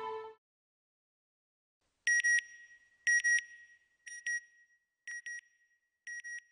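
Background music cuts off at the start; after a short silence come high electronic double beeps, one pair about every second, each pair fainter than the last.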